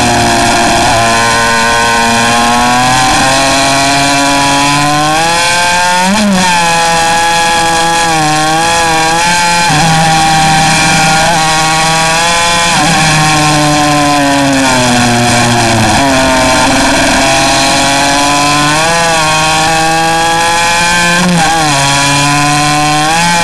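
50cc two-stroke pocket bike engine revving hard through a lap. The pitch climbs steadily for several seconds at a time, then falls quickly with short blips each time the throttle is eased for a corner, several times over.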